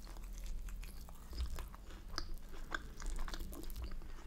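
Close-up chewing of a mouthful of Yorkshire pudding, with many small, irregular wet mouth clicks and smacks.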